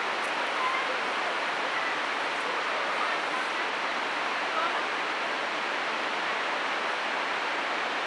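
Steady, even rush of a waterfall's falling water.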